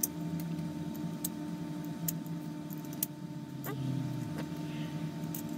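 Light, scattered clicks and taps of small metal screws against 3D-printed plastic parts as they are pushed into the holes of a printed ring, over a steady low hum.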